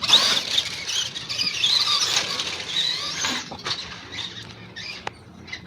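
RC car driving fast around a dirt track, its motor and gears whining in a high pitch that rises and falls with the throttle for about three seconds, then dropping off, with a couple of sharp clicks later on.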